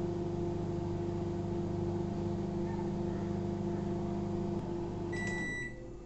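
LG MC2886BRUM 28-litre convection microwave oven running with a steady hum. Near the end the hum stops and a high end-of-cycle beep sounds.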